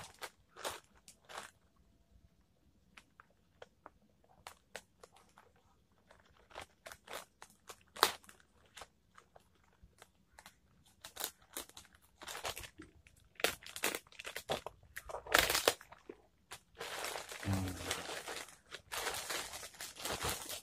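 Plastic courier mailer bag being torn open by hand: scattered sharp crackles and rips of the plastic, then denser continuous crinkling over the last few seconds as the bag is pulled off a cardboard box.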